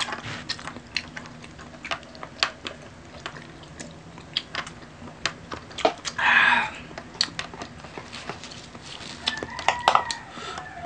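Eating sounds at a table: scattered clicks and taps of hands and utensils on plates and seafood, with a short hissy sound about six seconds in and a brief vocal sound near the end.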